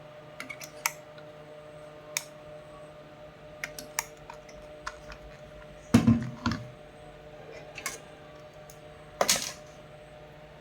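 Scattered light clicks and taps, with a few louder knocks about six seconds in and again near nine seconds, over a faint steady hum: small tools and parts being handled.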